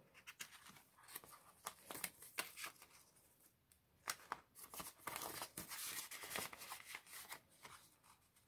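Faint rustling of paper banknotes being handled, then a denser crinkling stretch about five seconds in as two $5 bills are slid into a clear plastic binder envelope.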